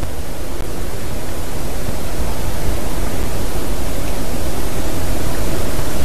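Steady rushing noise with a heavy, unsteady low rumble, slowly growing louder: wind buffeting a treetop nest camera's microphone.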